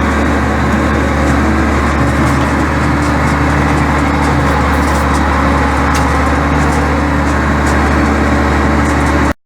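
International 1066 farm tractor engine running steadily while pulling a box scraper over a gravel road. The sound cuts off abruptly near the end.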